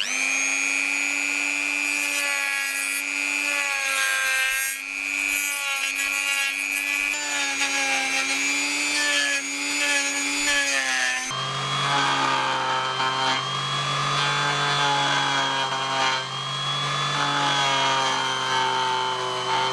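A handheld rotary tool (Dremel) with a bonsai nibbler carving bit whines as it cuts into the live trunk wood of a Japanese maple. Its pitch wavers and dips as the bit bites into the wood. About eleven seconds in, the whine switches abruptly to a lower pitch.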